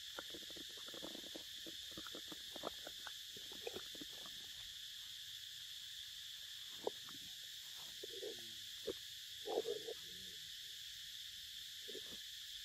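Steady high-pitched drone of insects, with scattered crackles and clicks of dry leaf litter and a mango being handled and bitten by a young monkey; a louder cluster of rustling comes about nine to ten seconds in.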